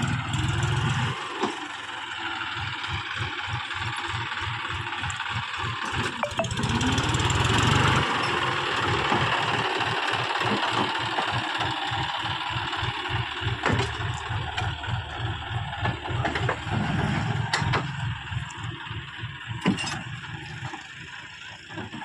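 Farm tractor's diesel engine running steadily with an even low beat and a hiss over it; it grows louder about seven seconds in, then settles back.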